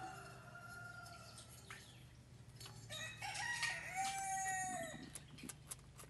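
A rooster crowing about three seconds in, one long call, over a few fainter clucking calls. Near the end come a few light knocks as the porcupine nudges a steel cup across the dirt.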